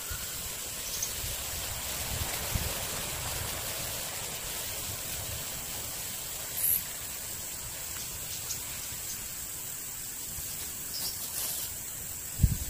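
Outdoor field ambience: a steady hiss with a constant high insect drone and a few brief high chirps, ending in a low thump.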